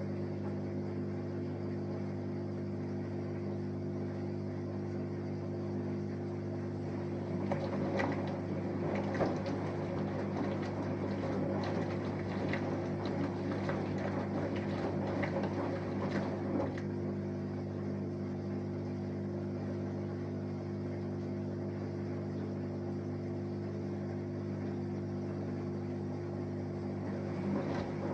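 Samsung Eco Bubble front-loading washing machine mid-wash: a steady motor hum, with water sloshing and laundry tumbling in the drum for several seconds in the middle.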